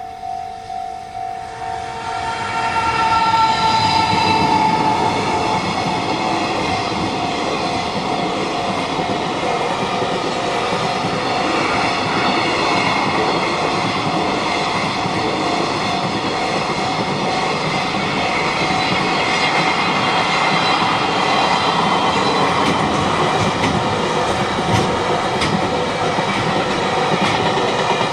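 Railway level-crossing warning bell ringing in quick, even pulses, then a long train passes over the crossing with clattering wheels for the rest of the time. The train's horn sounds briefly as it arrives, and the crossing bell keeps ringing underneath.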